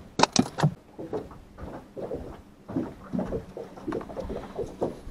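A crappie dropped into a plastic cooler, a quick run of four or five sharp knocks as it lands and flops in the first second, followed by softer, scattered bumps and handling noises.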